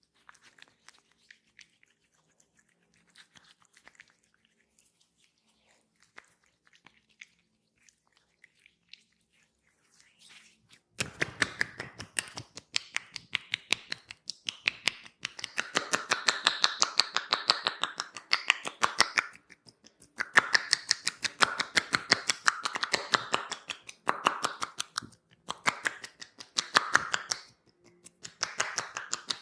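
Rapid hand tapping on skin in a percussive massage: quick runs of sharp strikes in several bursts with short pauses between them. They start about a third of the way in, after a nearly silent stretch with only a few faint soft ticks.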